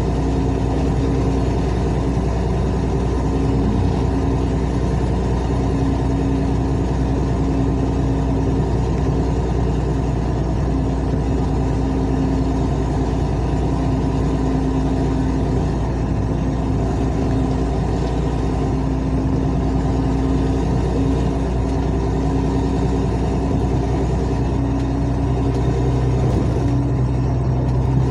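Car engine running steadily under way, with a loud exhaust from a burst exhaust flex pipe that leaves the exhaust effectively straight-through. The engine note changes near the end.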